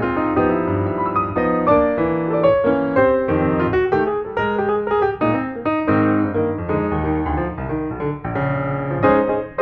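Background piano music, a steady run of notes with a melody.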